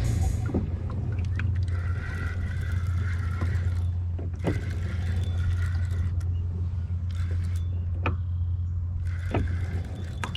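Kayak under way while trolling: a steady low drone runs throughout, with a few sharp ticks or light splashes, one about four and a half seconds in and two more near the end.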